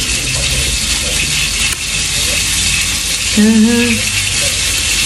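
Cutlets frying in a pan, a steady sizzle, with a short hummed voice sound about three and a half seconds in.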